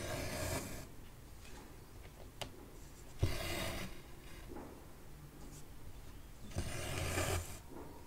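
Cotton embroidery thread drawn through 14-count cross-stitch fabric in three rasping pulls, each under a second and about three seconds apart, with a few faint ticks of the needle between them.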